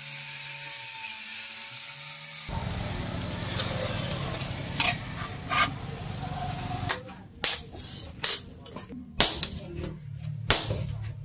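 Hammer blows on a handled hot-cut chisel cutting through a red-hot steel chainsaw guide bar on an anvil: four sharp metallic strikes about a second apart in the second half, after several seconds of steady background noise.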